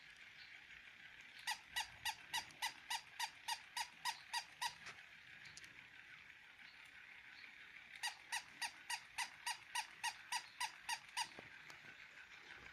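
Two runs of rapid, evenly spaced squeaks, about three a second, each run lasting around three seconds.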